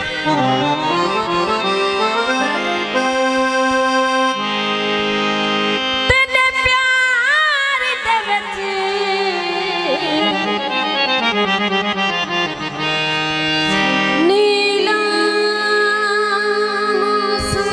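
Traditional South Asian folk music led by a sustained reedy melody instrument over a low held drone note, with sliding, wavering notes about six to eight seconds in.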